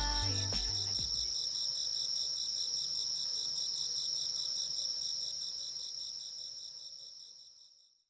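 Crickets chirping in a steady, high, evenly pulsed trill that fades out near the end.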